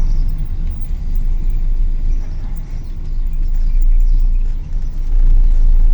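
Steady low rumble of a moving car, engine and road noise mixed, getting louder about five seconds in.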